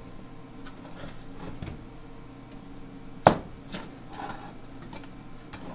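Metal clicks and clanks of a welder's spring ground clamp and a steel yoke being handled on a metal workbench, with one sharp clack a little past halfway, over a faint steady hum.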